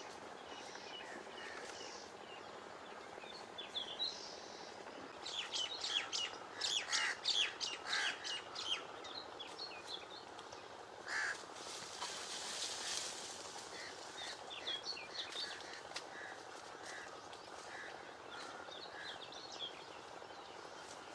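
Birds chirping and calling over steady outdoor background noise, with a burst of louder, rapid calls from about a quarter to nearly halfway through, then a short rushing noise just past the middle.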